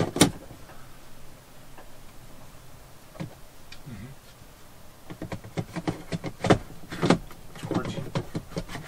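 Hard plastic clicks and scrapes as a smoke alarm is fitted and twisted onto its ceiling mounting base. A sharp click just after the start is the loudest; a scattered run of clicks follows in the second half.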